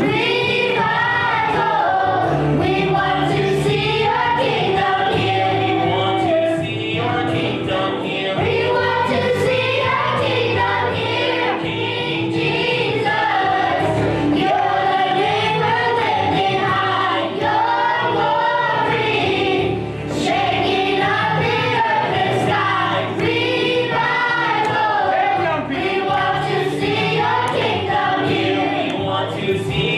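A gospel choir singing with instrumental accompaniment.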